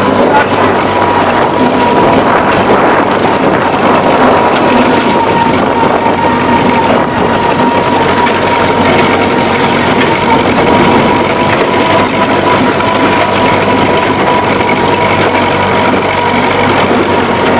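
Old farm tractor engine running steadily under load while pulling a rotary brush-hog mower, with a steady high whine throughout. The engine is running well.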